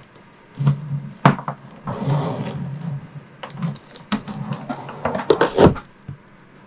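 Handling noise as a kitchen faucet is fitted: braided supply hoses rustling and knocking as they are fed down through the countertop hole, with several sharp clicks and knocks, the loudest near the end as the faucet body is set down on the counter.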